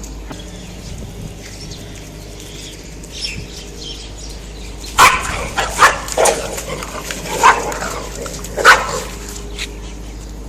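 A dog barking, about five loud barks spread over roughly four seconds in the middle, over a steady low hum.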